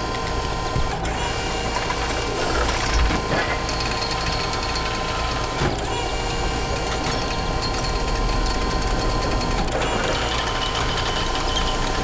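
Engine sound of heavy construction machinery running steadily, with a low rumble and a few short clicks.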